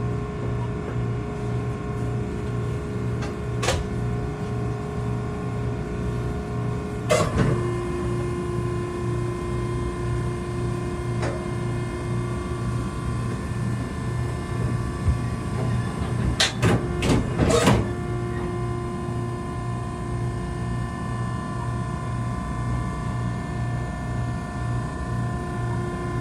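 Maren cardboard baler's hydraulic unit running with a steady hum. One of its tones drops slightly in pitch about seven seconds in. Sharp knocks come once early, once at about seven seconds, and in a quick cluster a little past halfway.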